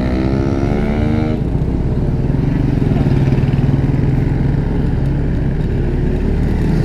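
Motorcycle engine on the move, rising in pitch as it accelerates, then dropping abruptly about a second and a half in and running on steadily, with road and wind rush.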